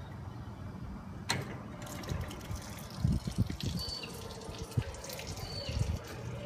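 Water running out of the batch pasteuriser's jacket drain and splashing onto a concrete floor as the jacket is drained after the holding stage. There is a sharp click about a second in, and a few low thumps around the middle.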